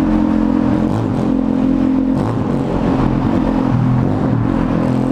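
Yamaha Fazer 250's single-cylinder four-stroke engine running under way through a straight exhaust pipe with no muffler, which makes it loud ("berrando"). The engine note drops to a lower pitch about two seconds in, and the sound reflects off the walls of a road tunnel.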